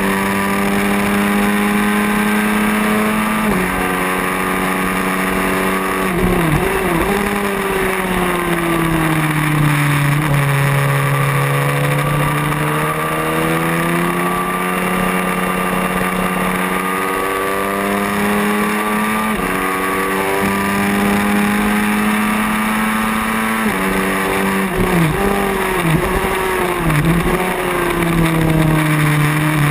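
Racing motorcycle engine heard from an onboard camera at high revs on track, its pitch stepping with gear changes. Twice, around six seconds in and again around twenty-five seconds in, the note wavers and drops in quick steps as the bike shifts down for a corner. Between those, the pitch rises steadily as it drives out. Wind noise rushes over the microphone throughout.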